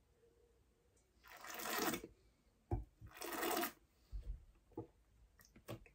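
A taster slurping red wine from a glass, drawing air in through the wine: two hissing slurps, the first about a second in and the second about three seconds in, with a click between them and a few soft clicks near the end.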